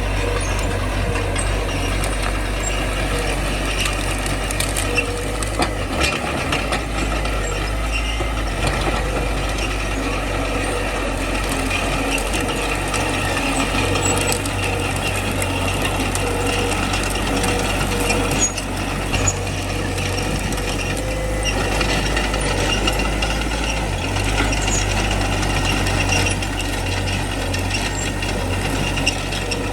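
Small crawler bulldozer working: its diesel engine runs steadily, with continuous metallic clanking and squeaking from the tracks and undercarriage.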